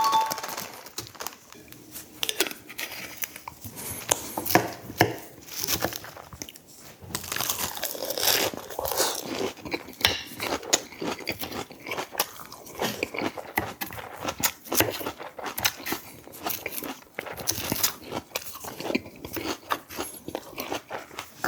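A person eating: irregular chewing and biting, with many small crunchy clicks and wet mouth sounds.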